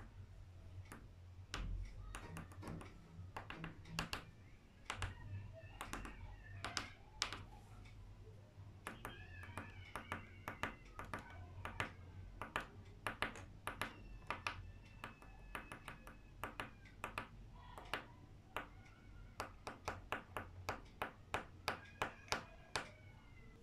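A coloured pencil tip tapping dots onto paper over a tabletop: many quick, irregular taps, coming faster and more evenly near the end. Faint high chirping tones sound now and then behind the tapping.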